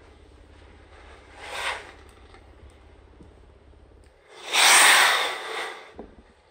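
Arzum AR6002 Steamforce steam-generator iron releasing steam with its steam button held: a short hiss about a second and a half in, then a much louder hiss of steam from about four seconds in that lasts over a second. It marks high steam output, about 250 g a minute.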